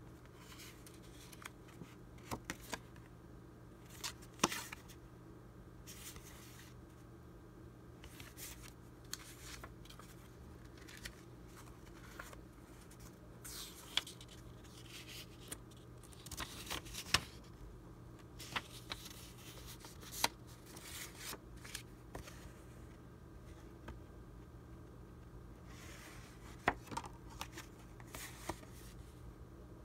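Vintage paper ephemera (printed labels, old documents and a used postcard) rustling, crinkling and tapping as it is picked up, turned over and laid down by hand, in scattered bursts with a few sharper taps. A faint steady hum sits underneath.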